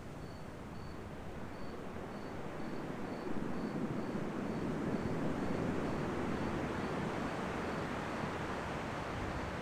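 Ocean surf washing ashore, a steady rushing wash that swells about three seconds in as a wave comes up. A faint high-pitched pulse repeats about twice a second behind it.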